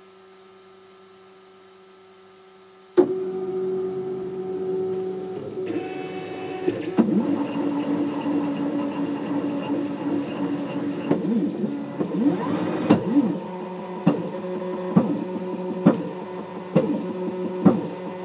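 Faint steady hum, then about three seconds in the stepper motors of a DIY Cartesian 3D printer start up with a whine that changes pitch from move to move as they drive the print head across the frame. Later there are regular sharp clicks about once a second.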